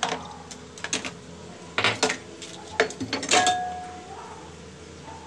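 Kitchen utensils knocking and clinking: a string of sharp knocks, and about three and a half seconds in a clink of metal on crockery that rings briefly.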